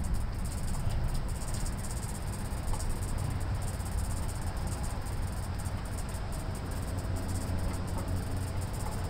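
Steady low background rumble with insects chirping.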